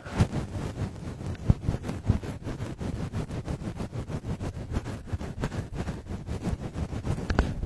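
The ASMR 'helicopter' trigger: rapid, even whooshing pulses made right against a binaural microphone, imitating a helicopter's rotor, with a few louder bumps on the mic.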